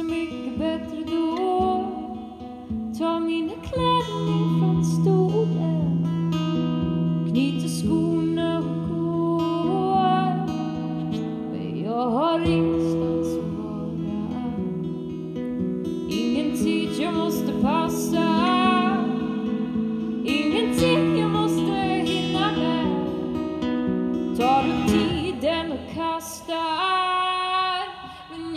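Live guitar music: a strummed acoustic guitar and an electric guitar, with a woman singing.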